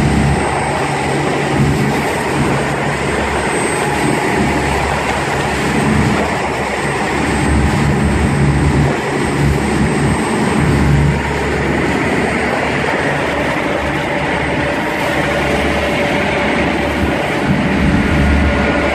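Pilot boat under way in rough water: a steady engine rumble, wind buffeting the microphone in uneven gusts, and spray and waves splashing against the hull.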